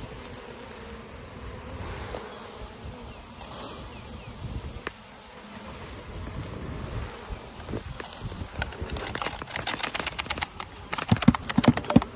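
A crowd of honeybees buzzing steadily at close range. From about nine seconds in, a rapid run of clicks and knocks, loudest near the end, as the plastic mini mating nucs are handled.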